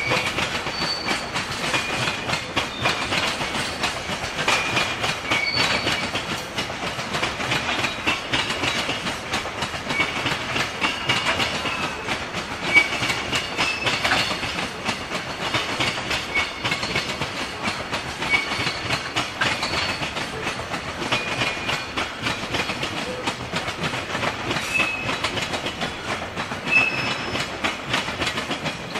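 JR Freight Koki container wagons rolling past, their wheels clattering steadily over the rail joints. Brief high squeaks come here and there over the clatter.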